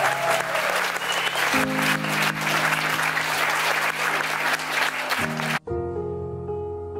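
A room of guests applauding, with steady music chords playing under the clapping. About five and a half seconds in it cuts abruptly to soft background music.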